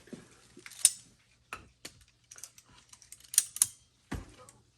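Sharp metallic clicks and clinks from a valve spring compressor and valve spring parts being worked on a cylinder head, with two quick loud clicks past the middle and a dull thump near the end.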